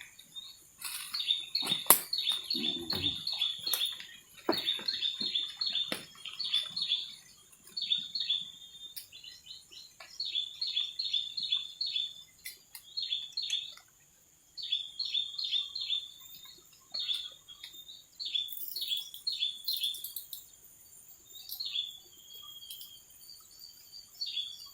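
A small bird chirping in quick runs of high, repeated chirps, several a second, broken by short pauses. A sharp knock sounds about two seconds in.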